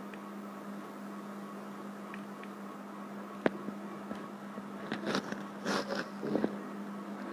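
Steady low hum of room tone, with a single sharp click about three and a half seconds in and a few soft rustles a little later.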